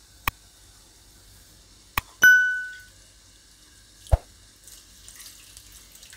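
Two sharp clicks, then a bright bell ding that rings out for about half a second: the sound effect of a subscribe-button animation. Near the end comes a knock, then water poured from a steel vessel into a plastic bowl.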